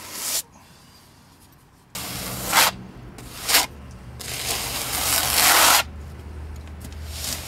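A trowel scrapes wet cement-acrylic base coat across fiberglass mesh on a foam-insulated wall, in several rough strokes of uneven length, the longest about a second and a half. A low steady hum runs underneath from about two seconds in.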